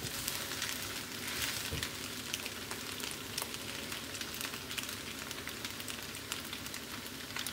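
Fusilli pasta and chicken sizzling in a hot non-stick frying pan: a steady frying hiss with scattered small pops while it is stirred with a spatula.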